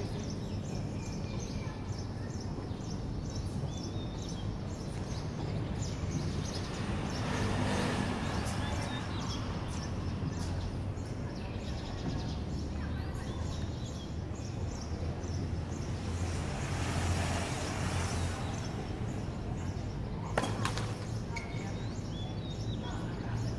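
Steady outdoor background noise at a tennis court between points, with a low hum under it, and one sharp knock about twenty seconds in.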